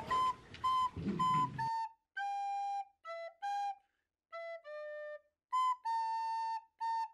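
Background music: a light melody of short, separate notes with pauses between them, one held longer near the end. Faint room sound lies under it for the first second or two, then cuts off.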